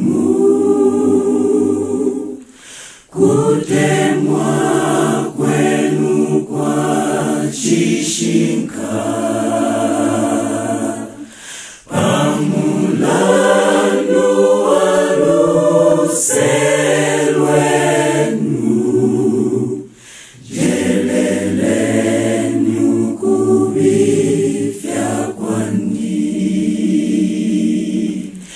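A choir singing unaccompanied in several parts, in phrases with short pauses between them.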